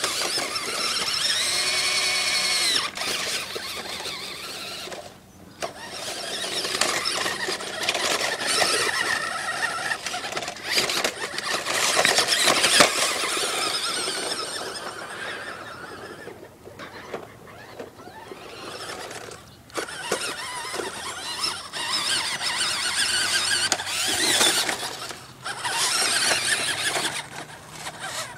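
Toy-grade RC truck's electric motor and gears whining, rising and falling in pitch as it speeds up and slows, mixed with the noise of its tyres scrabbling over rocks and dirt. The sound stops briefly a few times as the truck pauses.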